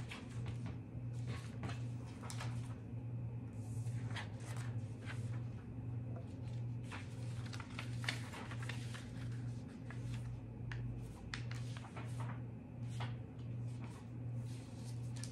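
Paper rustling and creasing as a sheet is folded by hand and book pages are handled, in many short scattered rustles and taps. Under it runs a low hum that swells and dips in a steady rhythm.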